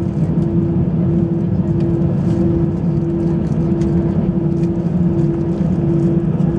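Airbus A320 cabin noise: the jet engines' steady drone, with a constant hum over a low rumble.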